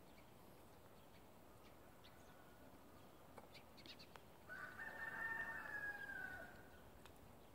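A rooster crowing once, a single drawn-out call of about two seconds that starts about halfway through and drops in pitch as it ends. A few faint short ticks come just before it.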